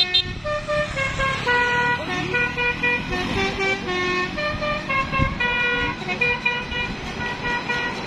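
Bus 'telolet' musical air horn of the Basuri type playing a quick melody of short held notes, one pitch after another, over the low running of vehicle engines.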